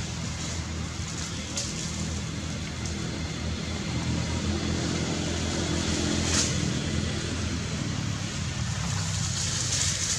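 A steady low engine hum, with a few brief crackles of a plastic bag being pulled about.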